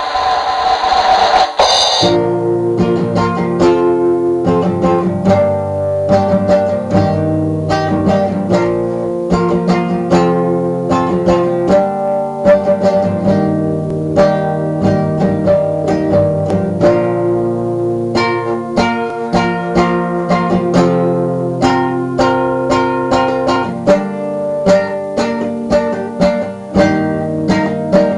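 Acoustic guitar with a capo, plucked and picked in a steady rhythm, playing an instrumental campfire-song melody with chords. It is preceded by a brief noisy sound with a steady tone in the first two seconds.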